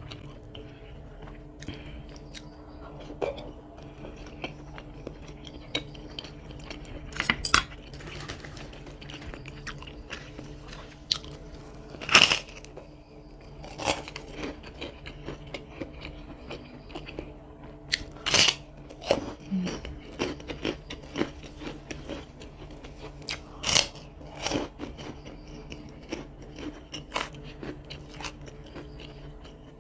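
Close-up eating sounds of chicken noodles and meatballs: chewing and wet mouth noises, with a few louder sharp smacks or clicks scattered through.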